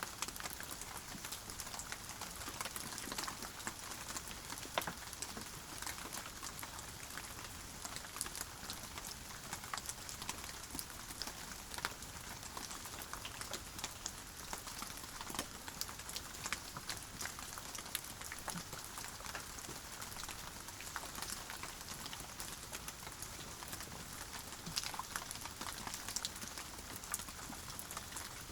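Steady rain falling, a constant hiss dotted with many separate sharp drop impacts. No thunder is heard.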